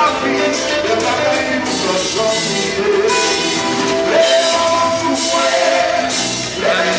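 Music with singing and sustained instrumental notes.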